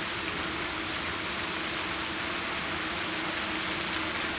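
Steady background noise: an even hiss with a low constant hum underneath and no distinct events.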